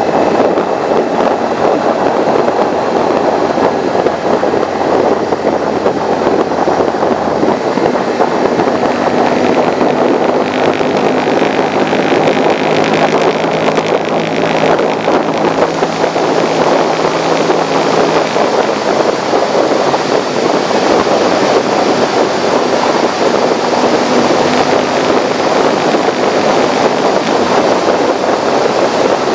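Motorcycle riding at road speed: steady, loud wind rush over the microphone with the engine's note running underneath and shifting pitch a few times.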